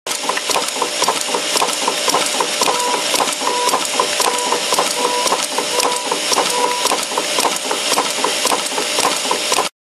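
Stamping machine for screwdriver bits running: a steady mechanical clatter of rapid clicks, with a hum that switches on and off in short stretches.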